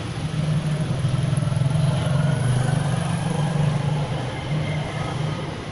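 A motor vehicle engine running steadily close by, a loud low hum, with street traffic noise around it.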